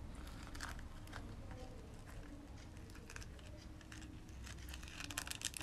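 Faint rustling and light ticks from fingers handling a glitter-paper pillow box and metallic tinsel thread while tying a bow, with a small cluster of ticks near the end.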